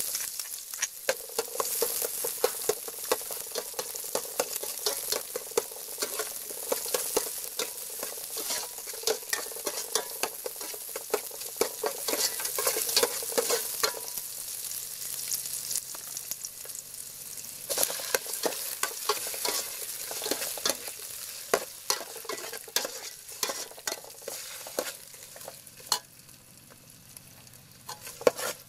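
Shallots, garlic, lemongrass and chili sizzling in oil in an aluminium pot, stirred with a metal ladle that scrapes and clicks against the pot many times. The sizzle dies down a little near the end.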